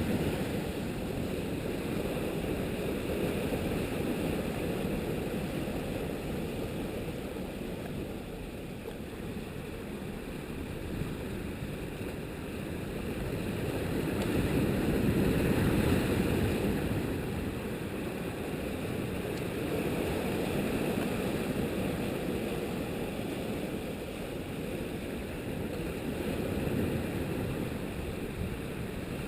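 Strong wind buffeting the GoPro's microphone: a steady low rumble that swells louder about halfway through, then eases.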